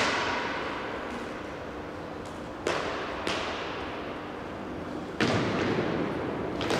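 Indoor hockey play: five sharp cracks at irregular intervals as stick and ball hit each other and the side boards, each ringing out in the hall's long echo.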